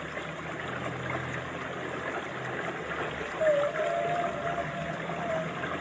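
Underwater recording of whale calls over a steady watery hiss: a low, drawn-out moan for the first couple of seconds, then a thinner, slightly wavering higher call from about three seconds in.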